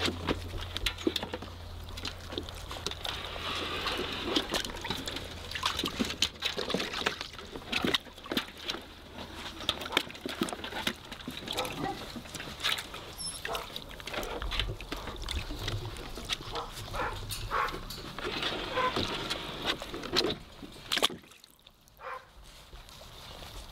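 Weimaraner puppies eating wet food from a galvanized metal tub, a busy run of small irregular smacking, slurping and clicking sounds, with water sloshing as they move about in a shallow pool.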